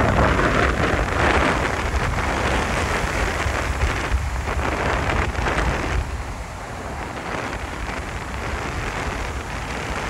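Wind buffeting the microphone over a steady rushing of wind and surf, loudest in the first few seconds and easing about six seconds in.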